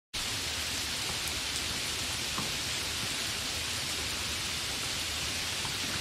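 Steady rain falling: an even hiss with a few faint drop ticks now and then.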